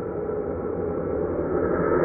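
Dark, droning horror ambience sound effect: a sustained, metallic gong-like drone made of many low held tones, swelling slightly near the end.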